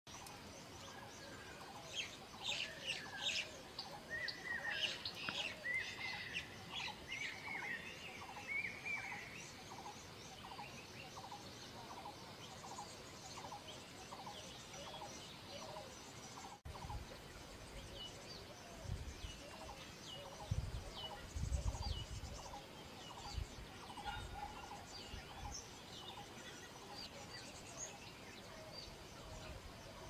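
Several wild birds calling in the tree canopy. Through the first half a steady run of repeated mid-pitched notes goes about two a second, with sharp high chips and a string of short arched whistles over it. In the second half there are only scattered faint chirps, broken by short low thumps.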